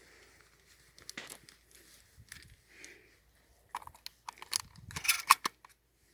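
Shotgun shells being pushed into a shotgun's spring-loaded magazine: scattered light clicks and rattles of shells against metal, with a busier run of sharper clicks in the second half.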